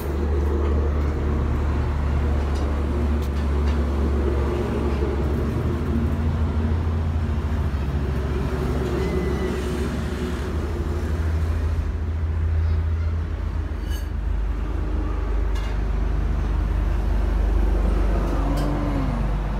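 Steady low mechanical rumble, with a few faint clicks in the second half.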